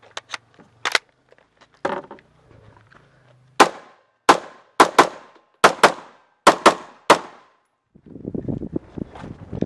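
AR-15 carbine firing about nine sharp, loud shots over three and a half seconds, several in quick pairs, with a few small clicks of handling before them. Near the end a low rumbling noise starts as the shooter moves.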